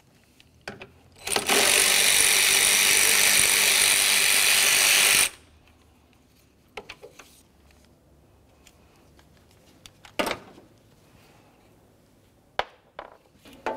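Power ratchet running steadily for about four seconds, spinning out the 8 mm mounting bolt of an A/C condenser cooling fan. Then come a few light clicks and a single knock as the loosened fan is handled.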